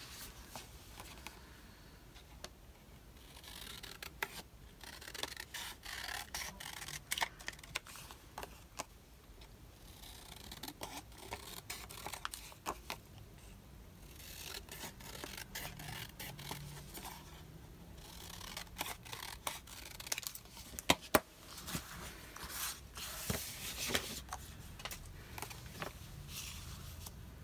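Scissors snipping through paper in short runs, mixed with paper being scraped and shuffled on a desk, and a few sharp clicks about 21 seconds in.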